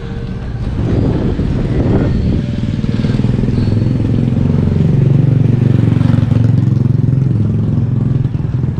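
A motor vehicle's engine running close by, growing louder about a second in and staying strong, its pitch sweeping up and down.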